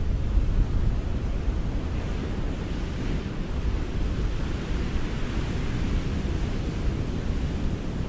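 Ocean surf: a continuous low rumble of waves, with the hiss of a wave washing in swelling up about three seconds in and easing off near the end.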